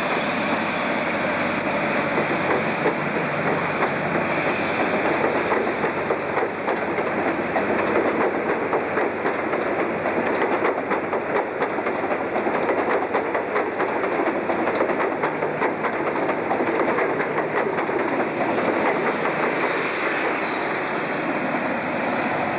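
InterCity 125 High Speed Train (Class 43 power cars with Mk3 coaches) running past, its wheels clicking rapidly over rail joints under a steady rumble, with the whine of the diesel power cars at the start and again near the end as the rear power car passes.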